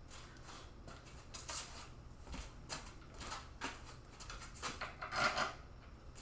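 Light clicks and clinks of small metal hardware being handled as a bolt, washer and nut are fitted to hold a PC fan, with a louder knock about five seconds in.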